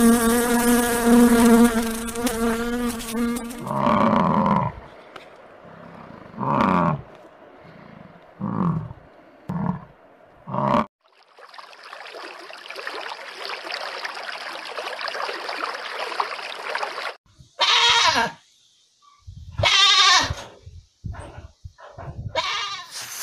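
A housefly buzzing on the wing, a steady pitched hum, for the first few seconds. Then comes a run of five short animal calls and a steady hiss of aquarium water. Near the end an animal bleats twice.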